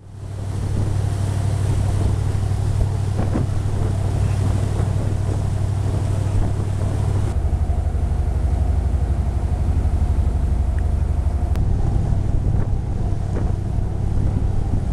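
Fishing charter boat's engine running steadily while underway, a low hum with wind buffeting the microphone. It fades in at the start, and the engine note changes about seven seconds in and again near twelve seconds.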